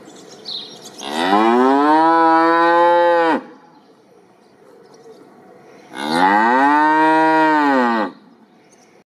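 A cow mooing twice: two long moos a few seconds apart, each rising then falling in pitch.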